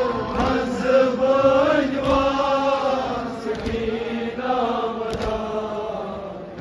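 Kashmiri noha: a male reciter chanting a Muharram mourning lament into a microphone over a loudspeaker, in long held, wavering notes. A sharp beat comes about every second and a half.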